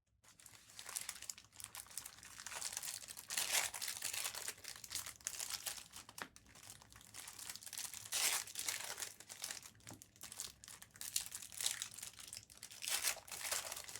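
Trading-card pack wrappers being torn open and crinkled, with three louder surges of crinkling.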